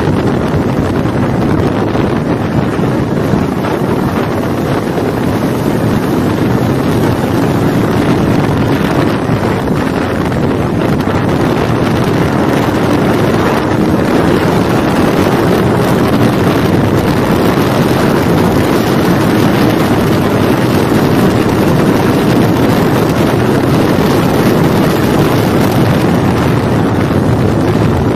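Kawasaki Ninja 400's parallel-twin engine running at speed, heard from onboard the motorcycle under a steady, heavy rush of wind on the microphone.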